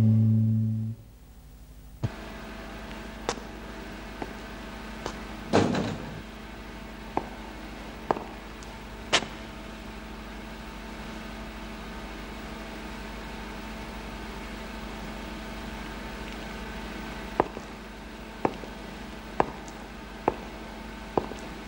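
Music ends about a second in. Then a steady electrical hum of a machine room, with scattered knocks, and near the end footsteps on a hard floor at about one a second.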